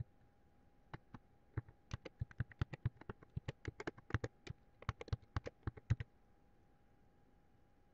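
Computer keyboard typing: a quick, uneven run of keystrokes that stops about six seconds in. A faint steady hum lies underneath.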